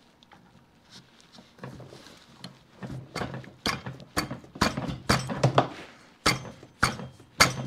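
Metal parts clicking and knocking as a magneto drive is worked onto the keyed governor shaft of a 1927 John Deere D: faint handling at first, then about a dozen sharp clicks in the second half as it is pushed on, a tight fit.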